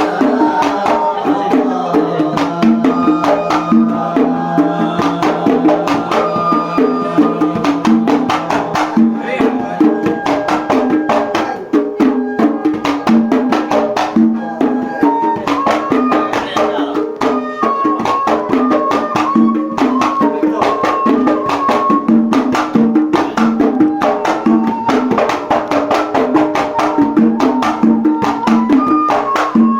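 Kuwaiti sawt music: a melodic line of stepping notes over a fast, dense rhythm of hand percussion.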